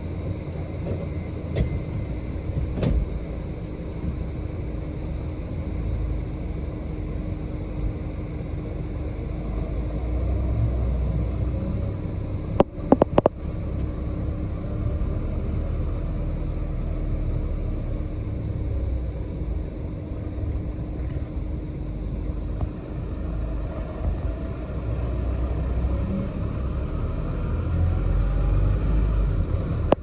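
Ride inside a moving city bus: steady low engine and road rumble with a constant faint hum. A brief cluster of sharp knocks comes a little before halfway through.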